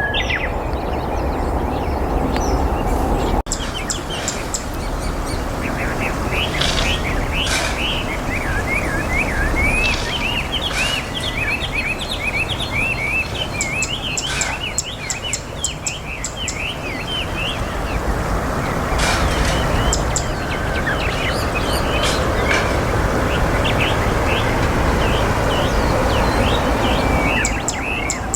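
Zitting cisticola calling: rapid, repeated short chirps and sharp high ticks, over a steady low background rumble.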